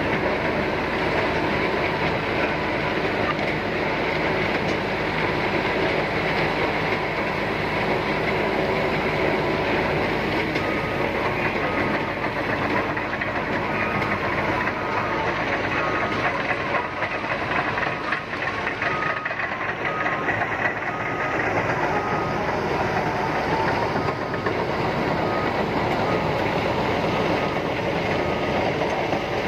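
Liebherr PR745 crawler bulldozer working: its diesel engine runs steadily under load while the steel tracks clatter. From about ten seconds in, a high beeper sounds about once a second until near the end.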